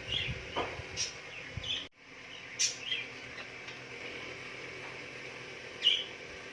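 Birds chirping in short, separate calls over a steady background hiss, with a few light clicks.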